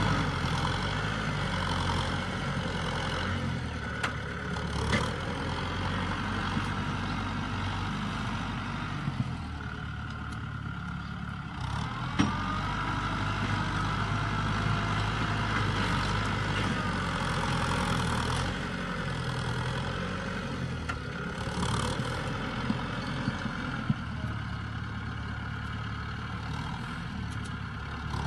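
Kubota tractor's diesel engine running steadily while the tractor moves along a mound of earth. A few sharp clicks or knocks sound over it, around 4, 5 and 12 seconds in and again near the end.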